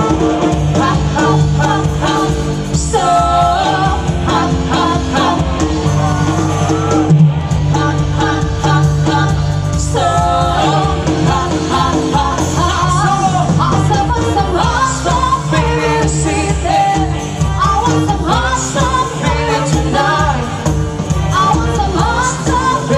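Live band playing a disco song through a PA system: singers over drums, bass guitar, electric guitars and keyboard, with a steady dance beat.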